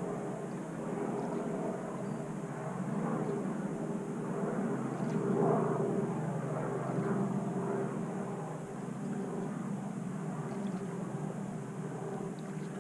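A motor engine drones steadily, growing louder about five to six seconds in and then easing off.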